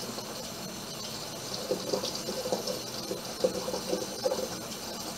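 A makeup brush being swirled round and round in a ridged cut-glass dish of soap and olive oil solution, the wet bristles swishing and rubbing against the glass with short, repeated squeaky scrapes.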